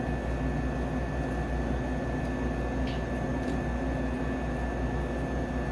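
Steady hum and hiss of a restaurant kitchen while an omelet with meat cooks in a skillet on the grill, with a thin steady high tone and a couple of faint clicks about three seconds in.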